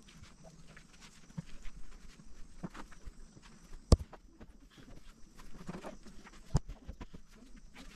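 Irregular light knocks and taps, with two sharp, louder knocks about four and six and a half seconds in.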